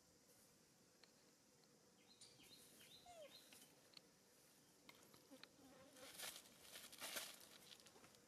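Faint outdoor ambience: a few short high chirps about two to three seconds in, then a brief rustle of dry leaves near the end.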